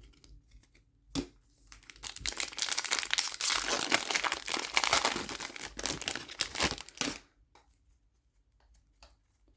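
Wrapper of an Upper Deck hockey card pack being torn open and crinkled: a single sharp click about a second in, then dense crackling for about five seconds, stopping near the end.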